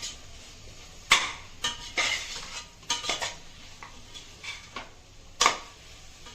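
A spoon stirring and scraping in a pressure cooker pot, knocking against the metal about eight times with the sharpest knock about five and a half seconds in, over a faint sizzle of chicken and onions frying in oil.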